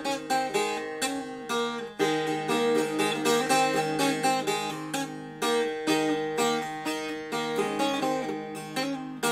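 Long-necked fretted lute plucked solo, playing a lively melody of quick repeated notes, with brief breaks about two seconds and five and a half seconds in.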